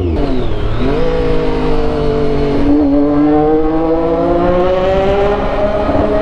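Triumph Daytona 675's three-cylinder engine through a 3-in-1 full exhaust with an Austin Racing muffler, heard in a road tunnel. Its revs dip and rise quickly at the start, then the bike pulls steadily under throttle with the note slowly climbing.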